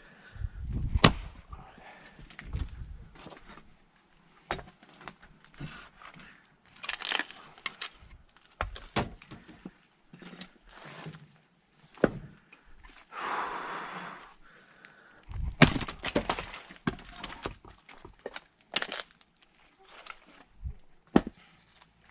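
Firewood being split by hand with an axe: sharp cracks and knocks as the blade strikes and the logs split apart, coming every second or few seconds at an irregular pace.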